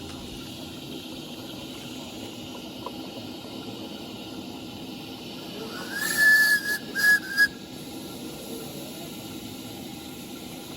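Steam whistle, likely on a miniature live-steam locomotive, blown about six seconds in: one longer blast, then two short toots, a steady pitch with a hissy edge. Steady background noise runs underneath.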